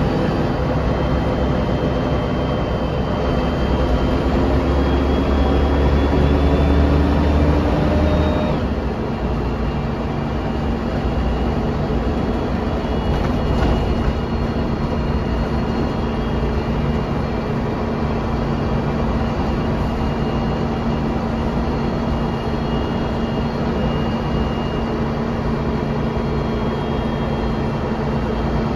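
Mercedes-Benz O405NH bus heard from inside the saloon while under way. The engine note rises steadily as the bus accelerates for about eight seconds, then cuts back sharply and settles into a steady, lighter hum as it travels on.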